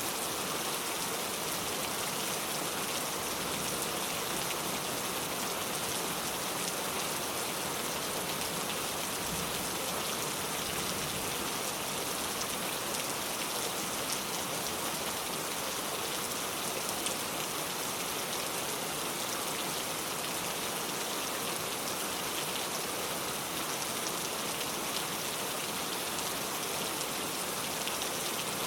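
Steady rain falling, a continuous even hiss of drops with faint scattered individual drop ticks.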